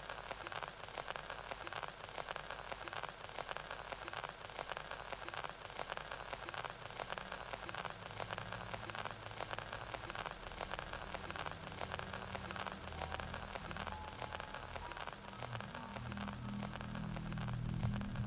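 A steady, dense crackling patter. Low musical notes come in near the end.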